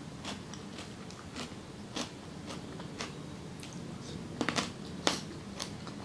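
Chewing a mouthful of spicy Thai squid salad: wet mouth clicks and crunches about two a second, with a louder cluster of crunches about four and a half seconds in and another just after five seconds.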